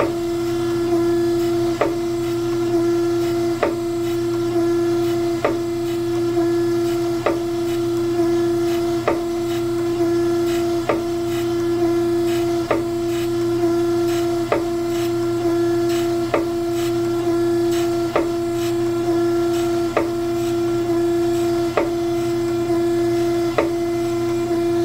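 Surface grinder running with a steady hum, its table reciprocating with a sharp click about every two seconds at each stroke reversal, while the wheel takes a light cut of a couple of thousandths off a high spot on a hollow straightedge prism.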